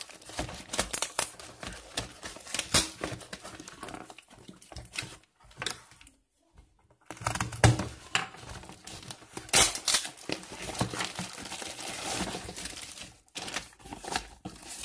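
Cardboard box and padded paper mailer being torn open and handled, with plastic bubble-wrap packaging crinkling: irregular crackles and rips, with a short pause about halfway through.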